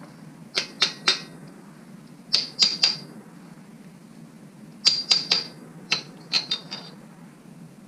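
Metal tools striking and clinking against engine parts in quick runs of about three sharp, ringing taps, repeated four times, over a steady low hum.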